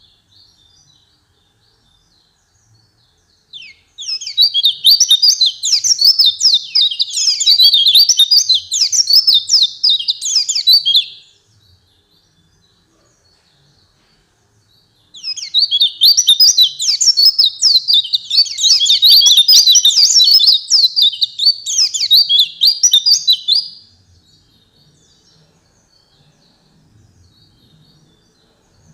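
White-eye (pleci) singing two long, rapid, high-pitched runs of sweeping twittering notes, each about seven to eight seconds, separated by a pause with only faint chirps.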